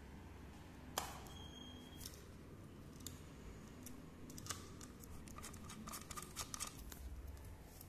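Faint handling noise: small, scattered metallic clicks and taps as an SMA antenna connector is threaded onto a transmitter's SMA port. There is one click about a second in and a cluster of them in the second half.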